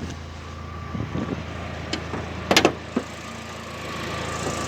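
UAZ Patriot engine idling steadily, with a few short clunks and knocks over it, the loudest a double knock about two and a half seconds in.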